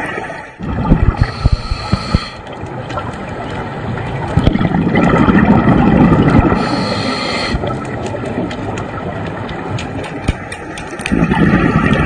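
Scuba breathing heard through an underwater camera: swells of exhaled regulator bubbles rumbling, with a higher hiss of inhalation between them. A run of sharp clicks and knocks comes about a second in.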